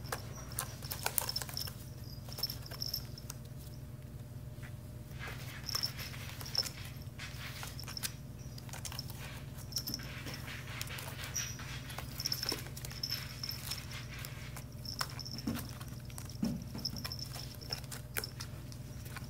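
A kitten's paws and claws scrabbling and scratching on a woven basket as it chases its own tail, with scattered light taps and rustles, over a steady low hum.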